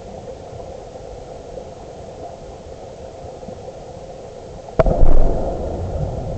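Steady muffled water noise heard underwater on a river bed. Near the end comes a sudden sharp knock, followed by a loud low rumbling surge that dies away over about a second.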